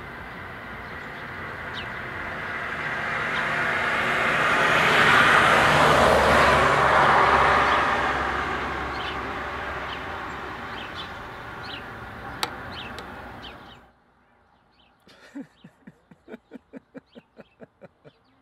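A motor vehicle passing: a rush of engine and road noise that swells to its loudest a few seconds in, then fades and cuts off suddenly about two-thirds of the way through. A quieter quick run of short pulses, about four a second, follows.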